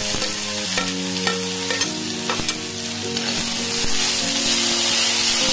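Chopped onions hitting hot oil in an iron kadai and sizzling steadily while a steel spatula stirs them, with light clinks of the spatula against the pan.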